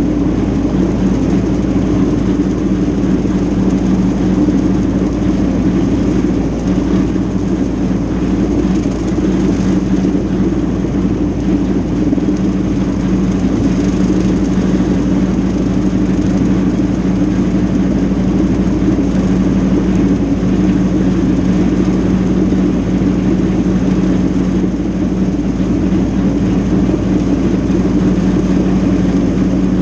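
Mahindra compact tractor's diesel engine running steadily under load while the rear brush hog rotary cutter mows tall grass: a constant drone that holds the same pitch throughout.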